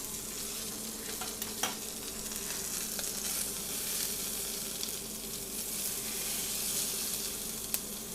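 Lamb rump sizzling skin side down in hot oil in a frying pan, its fat rendering, as a steady frying hiss. Two sharp clicks cut through it, one under two seconds in and one near the end.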